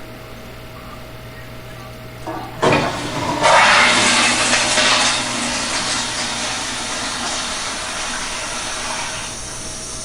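A click about two and a half seconds in, then a loud rushing hiss that fades slowly over about six seconds.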